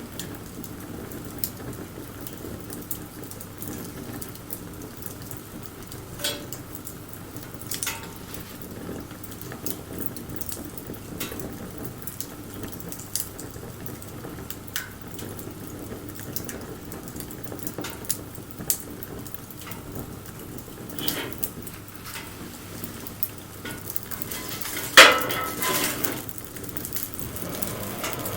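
Wood campfire burning: scattered sharp crackles and pops over a low steady hiss of flame, with one louder crack about 25 seconds in.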